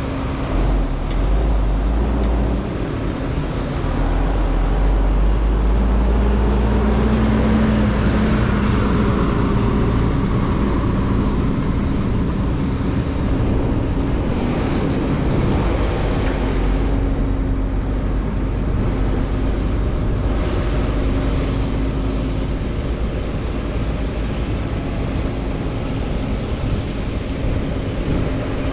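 Large diesel farm machinery running steadily, with a low engine drone and a constant rumble throughout.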